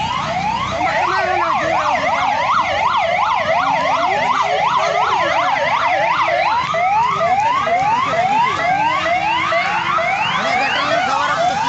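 A dense chorus of many overlapping calls, each a quick rising whistle-like sweep, repeating several times a second with no break.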